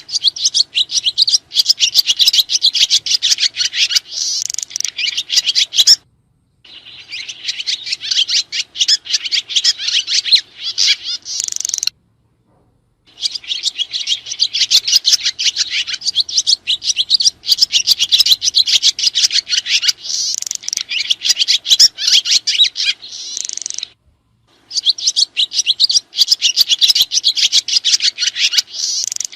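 Swiftlets (burung sriti) twittering in a dense, continuous stream of rapid high chirps. The chirping breaks off into complete silence for under a second about 6 s in, for about a second near 12 s, and briefly near 24 s, each time starting again abruptly.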